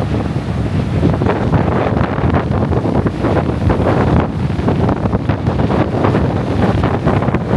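Strong wind buffeting the microphone: a loud, continuous rumble with rapid gusty flutter.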